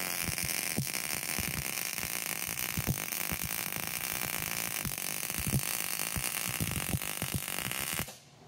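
Miller MIG welder running an argon–CO2 gas-shielded arc, turned up high: a steady crackling and sputtering hiss with irregular pops as the bead is laid. It cuts off suddenly near the end when the trigger is released.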